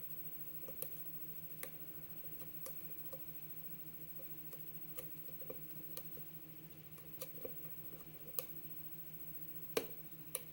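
Faint, irregular clicks and ticks of a steel hook pick working the pins of a five-pin MD Euro cylinder under light tension, with the loudest click near the end. A steady low hum runs underneath.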